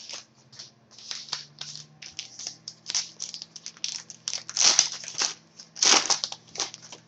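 Crinkling and crackling of a trading-card pack wrapper being handled and torn open, in a quick run of irregular crackles with louder bursts about two-thirds of the way in and near the end.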